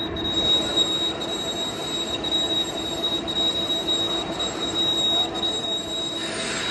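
Lathe turning the bore of a heavy square steel workpiece, the machine running steadily under a sustained high-pitched metal squeal from the cutting tool on the steel. A short rush of noise near the end.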